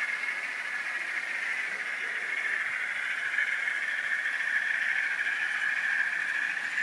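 OO gauge model trains running on a garden layout: a steady whirring hiss of their motors and wheels on the track.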